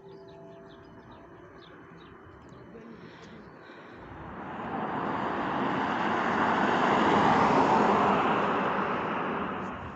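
A car drives past on the road: its noise swells from about four seconds in, is loudest about three seconds later, then fades away. Faint bird chirps come before it.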